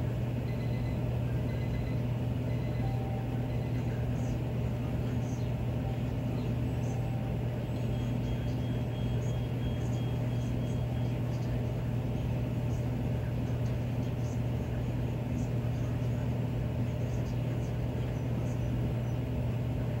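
Miller E2 furnace running in cooling mode, its blower moving air with a steady low hum and an even rush of airflow. A few faint short high tones and ticks sound over it.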